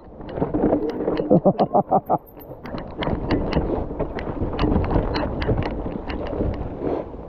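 Mountain bike riding over a rough, rooty trail: irregular rattles and knocks of the bike over the ground, with wind rumbling on the microphone. About a second in there is a brief rapid juddering.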